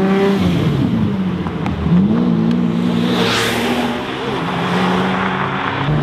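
Sports car engines revving and accelerating past, their pitch falling and rising, with a loud rush of acceleration about three seconds in.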